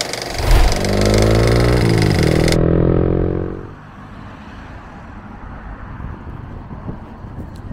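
A motor vehicle's engine running close by, rising in pitch about a second in, then holding steady before fading away at around three and a half seconds. A steady hum of distant road traffic follows.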